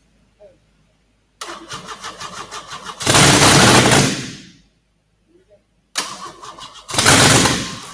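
Starter cranking a rebuilt 3.4 L V6 with a rapid rhythmic chug. The engine fires up loudly for about a second, then dies away. This happens twice: cranking from about a second and a half in, and again about six seconds in. The engine runs without a muffler.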